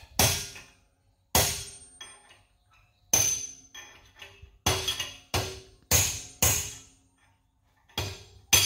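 Hammer blows knocking a pinion bearing cup (race) out of a Dana 80 differential housing: about nine sharp, ringing metal strikes, irregularly spaced.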